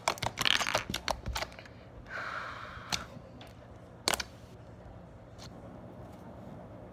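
Glossy slime being poked and pressed by fingertips on a tabletop, giving a quick run of sticky clicks and pops in the first second or so, then single pops about three and four seconds in.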